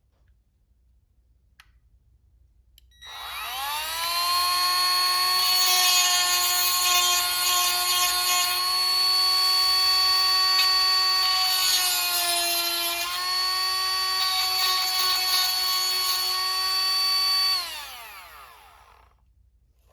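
Dremel rotary tool grinding the cutters of a chainsaw chain: it spins up with a rising whine about three seconds in and runs steadily. Its pitch sags briefly past the middle, then it spins down near the end.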